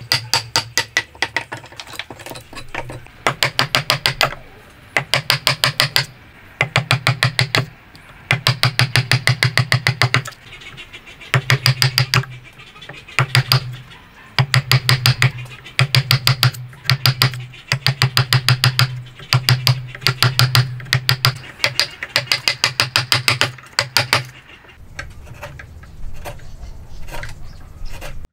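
A wood chisel being driven into a hardwood joint block by quick runs of strikes, about eight to ten sharp knocks a second in bursts of roughly a second with short pauses. A few seconds before the end it turns to quieter, softer paring sounds as the chisel is worked by hand.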